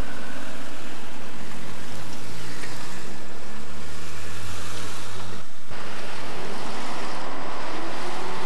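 Steady rushing noise of passing road traffic with wind on the camcorder microphone. It breaks off in a short gap about five and a half seconds in, where the recording cuts.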